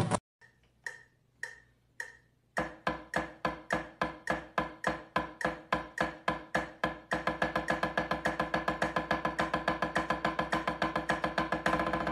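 Drumsticks playing single strokes on a rubber practice pad, alternating right and left hands. After four faint clicks, even strokes at about four a second begin, then speed up to about eight a second around seven seconds in.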